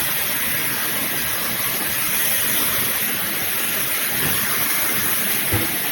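Wavytalk Turblow Pro high-speed blow dryer running steadily on its high setting: an even rush of air with a fan hiss.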